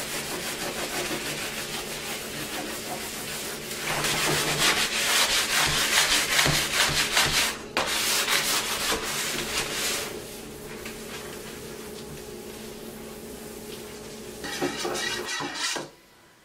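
Hand-sanding a varnished wooden tabletop and its legs, a steady scratchy rubbing that grows louder partway through and eases off later. This is scuffing the cured semi-gloss varnish before a coat of satin.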